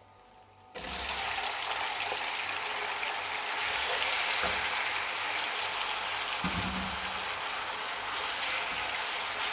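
Marinated chicken pieces hitting hot oil in a kadhai: a loud sizzle starts suddenly about a second in and keeps going steadily as the chicken fries, with a couple of low knocks from stirring.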